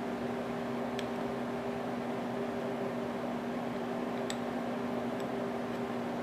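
Steady machine hum, like a shop fan, with two faint light clicks of metal on metal, about a second in and past four seconds, as a small bolt is worked into an aluminium piston.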